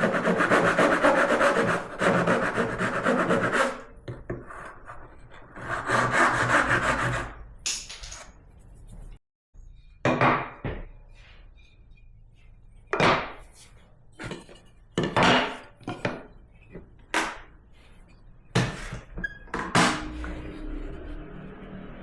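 Hand tool working on wood: two spells of fast scraping strokes, a few seconds each, then a string of short, separate knocks spaced a second or two apart.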